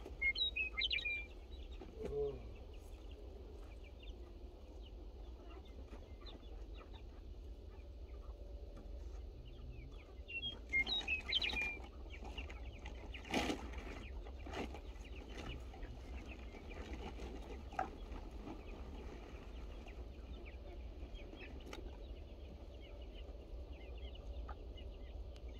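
Chickens calling in two short bursts of high chirps, one just after the start and one about 11 seconds in, with a single sharp knock a couple of seconds after the second.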